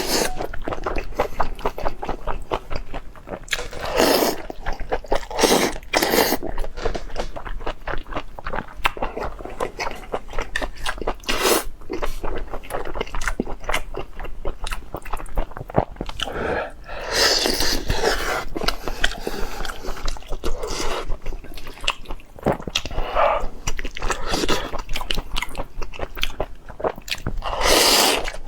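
A person eating close to the microphone: continual biting and chewing with crunching and wet clicking, and a few longer noisy swells.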